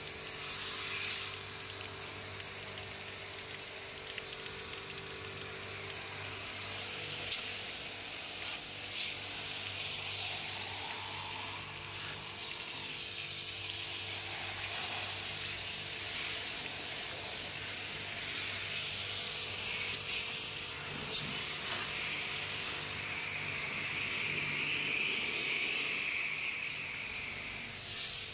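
Jet of water from a pressure-washer pump hissing steadily against a split AC outdoor unit's condenser coil, washing dirt out of the choked fins. A steady low hum runs underneath.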